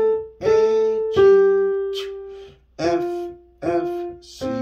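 Yamaha piano playing a simple beginner melody one note at a time: about six notes, each ringing and fading, one held longer about a second in, with a lower left-hand note sounding under the last note near the end.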